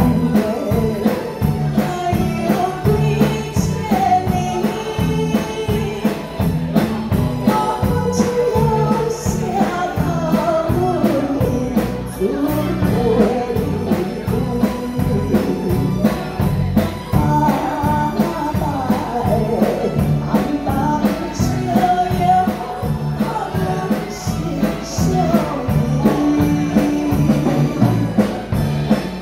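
A woman singing a Taiwanese ballad into a microphone over band accompaniment with a steady beat.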